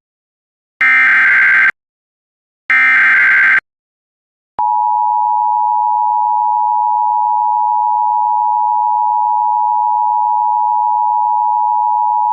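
Emergency Alert System broadcast signal: two short bursts of the digital header data, each just under a second long and about a second apart. After a one-second gap comes the steady two-tone attention signal, which starts about a third of the way in and holds on unchanged.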